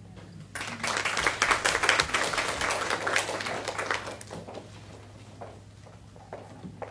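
Audience applauding, starting about half a second in, loudest for a couple of seconds, then dying away to a few scattered claps.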